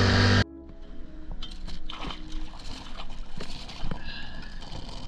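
Outboard motor running at speed, cut off suddenly about half a second in. After that, water slaps and sloshes against the side of a stopped inflatable boat, with scattered small knocks and clicks.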